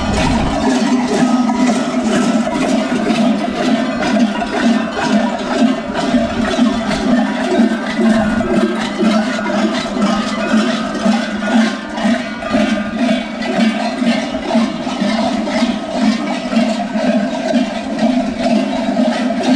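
Dozens of large metal goat bells worn around the waist of Skyrian 'Geroi' costumes, clanging together in a continuous dense clatter that swells and falls in a pulse about twice a second with the wearers' steps and hip sway.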